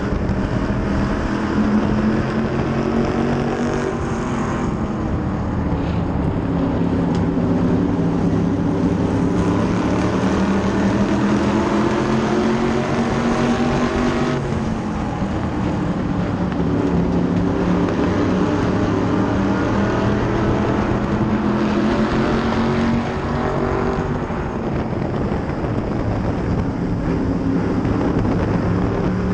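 SK Lite modified race car engines running in a close pack. The onboard car's engine is near full throttle, its pitch climbing down each straight and dropping as it lifts off for the turns, three times over, with the engines of the surrounding cars blended in.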